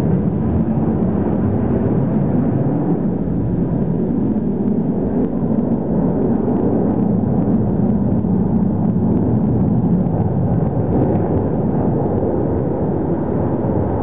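Steady low roar of a formation of military jet fighters' engines flying overhead.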